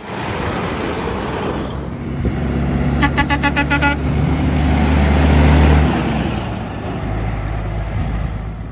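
A semi truck passing close by: a rush of passing noise, then a quick string of about eight short horn toots about three seconds in, over a deep diesel engine drone that swells and then fades as the truck goes away.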